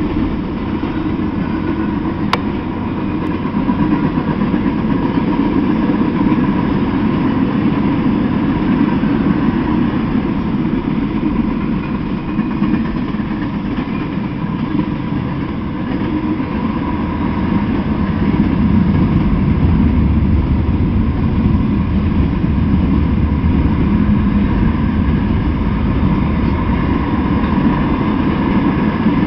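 Mixed freight train rolling past on the rails: a steady rumble of its wheels and cars, with one sharp click about two seconds in.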